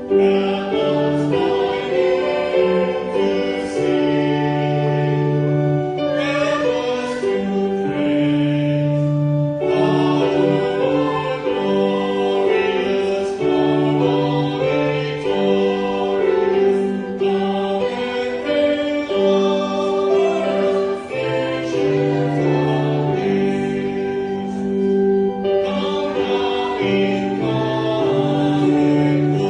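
Church music: voices singing a slow hymn-like melody over long, held accompaniment chords.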